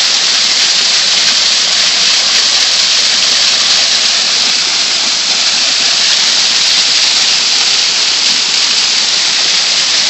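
Waterfall splashing down a rock face onto the stones below, a loud steady hiss of falling water heard close up.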